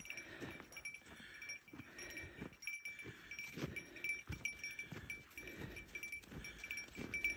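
Footsteps crunching on packed snow at a steady walking pace, about two steps a second.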